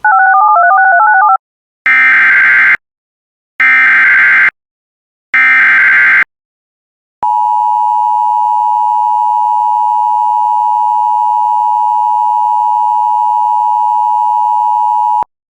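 Emergency Alert System broadcast signals. A brief warbling beep alternates between two pitches. Then come three short bursts of SAME header data screech about a second and a half apart, and after them the EAS two-tone attention signal, held steady for about eight seconds before cutting off suddenly.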